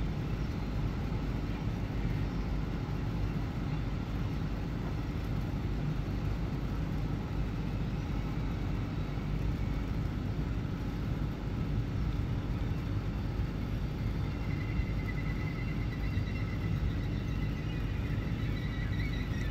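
Steady low rumble of an ICE 4 (class 412) electric high-speed train pulling slowly out of a station at a distance. A high wavering tone joins in about three-quarters of the way through.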